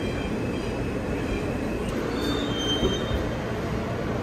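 New York City subway train running, a steady rumble with faint high-pitched wheel squeals around the middle.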